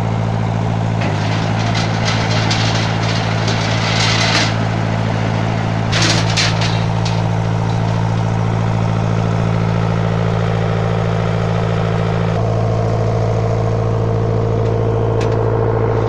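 Steady low machine drone from site machinery at a rebar spiral-bending machine, with a few metallic clanks of steel reinforcing bar about 4 and 6 seconds in. The drone's tone changes about 12 seconds in.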